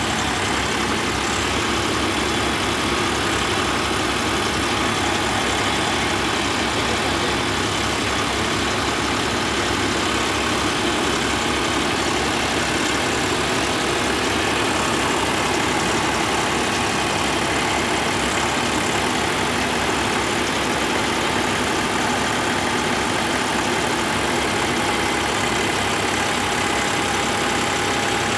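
Mahindra farm tractor's diesel engine idling steadily close by.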